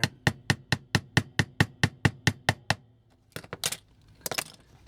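Small hammer tapping an ice pick to drive out a toy-car wheel rivet: a fast, even run of sharp metal taps, about five a second, for nearly three seconds. Two short scraping clatters follow.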